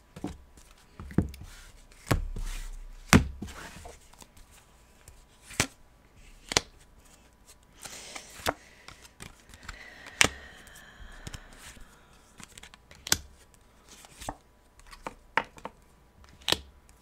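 Tarot cards being dealt from the deck and laid on a cloth-covered table: irregular sharp taps and snaps of card stock, about one a second, with a brief soft rustle of cards sliding a little past the middle.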